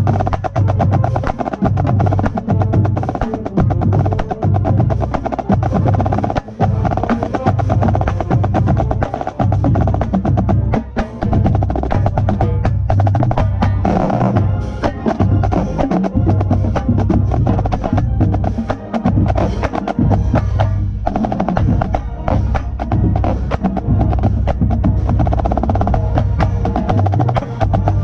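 Marching band playing, with a snare drum right at the microphone playing rapid strokes and rolls over the brass and low drums.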